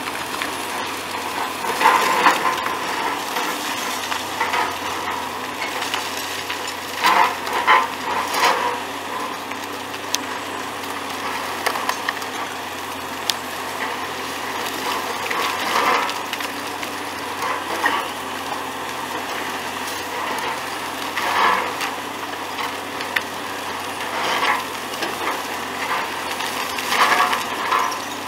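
Hydraulic demolition excavators running steadily while a crusher jaw bites into a concrete bridge abutment. Crunching and falling concrete rubble come in loud bursts every few seconds.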